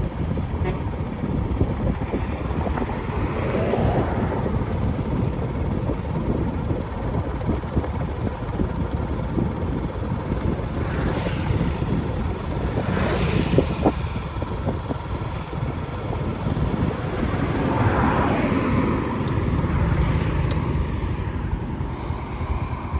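Steady outdoor rumble with wind buffeting the microphone, and a few louder swells that rise and fade, like vehicles passing, a few seconds in, around the middle and later on.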